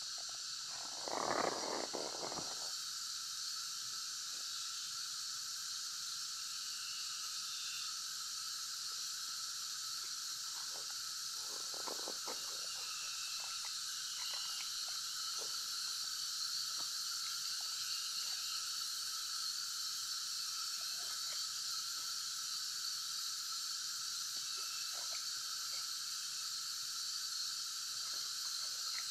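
Wood campfire crackling with scattered small pops, over a steady high hiss in several bands. A brief louder rush comes about a second in.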